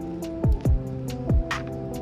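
Background music: held chords over a slow beat of deep kick drums that drop quickly in pitch, with a snare hit near the end.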